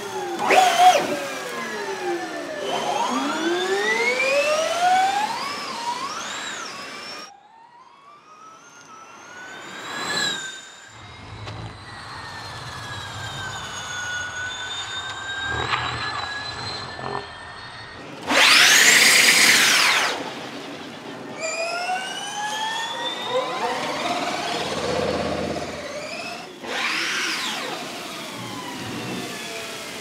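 Audi Sport ABT Schaeffler Gen2 Formula E car's electric powertrain whining, the high-pitched whine sweeping up and down as the car accelerates and lifts. Several times the whine swells and falls away as the car passes close, loudest about two-thirds of the way through.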